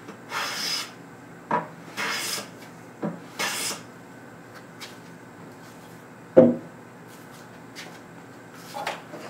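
Metal bench plane taking three quick strokes along the edge of a board held in a wooden leg vise, each a short rasping hiss of the blade cutting a shaving. About six seconds in there is a single loud wooden knock.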